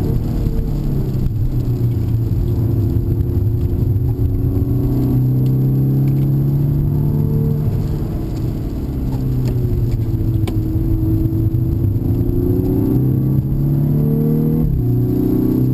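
Volkswagen Golf VI R's turbocharged four-cylinder engine under way, heard from inside the cabin. The pitch dips and climbs again over the middle, then rises and drops sharply near the end as the revs fall.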